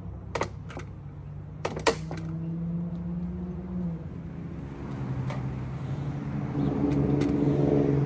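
Honeybees buzzing in flight around a bee package, a pitched hum of several overlapping tones that swells louder near the end. A few sharp clicks and knocks from the package being handled come in the first two seconds.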